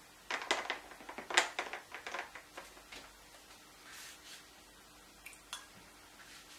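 Wide flat watercolour brush scrubbing and tapping in quick succession for about two seconds as it is loaded with paint, then a faint soft swish of the brush across the paper.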